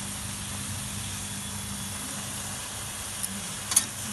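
Steady hiss from a gas stove with carrot halwa cooking on low heat in a steel kadhai, over a low steady hum. Near the end, two sharp clicks, the second the loudest sound.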